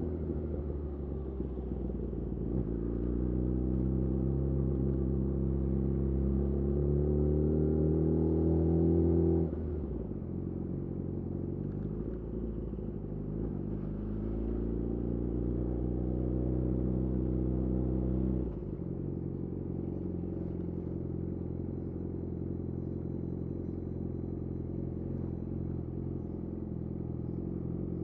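Yamaha YZF-R6 inline-four engine running through a de-catted Akrapovic slip-on exhaust while riding. Its pitch climbs slowly twice, each climb ending in a sudden drop about 9 and 18 seconds in, as the throttle closes or a gear changes. After that it holds a steadier, lower note.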